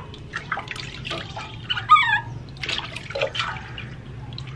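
Water splashing and dripping in a steel basin as a hand washes baby monkeys, with a short high warbling squeal from a baby monkey about two seconds in.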